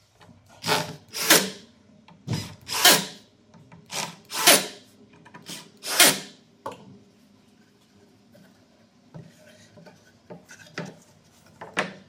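Einhell TE-CD 18/50 Li-i BL cordless drill driving wood screws into plywood: four screws in quick succession, each driven in two short bursts of the motor. A few fainter short sounds follow near the end.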